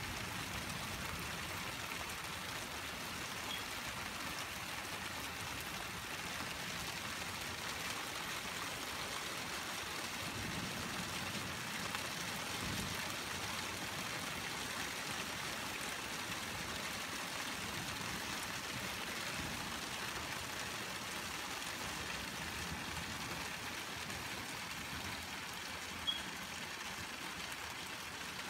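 Steady rain falling, an even hiss, with one sharp tick near the end.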